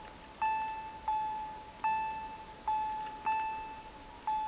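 Railway level crossing warning bell ringing: about six bright strokes, each ringing out and fading, alternating between two slightly different pitches. It signals that a train is approaching.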